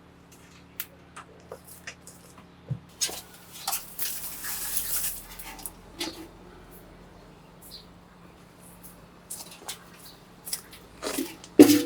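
Hand pruning shears snipping hydrangea stems: a string of short, sharp clicks, with foliage rustling about four seconds in and the loudest snip near the end.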